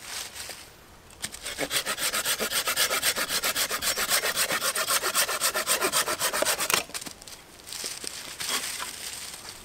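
Small hand saw cutting through a green sapling pole in quick, even back-and-forth strokes. The sawing starts about a second in and stops about three seconds before the end, followed by quieter rustling and handling.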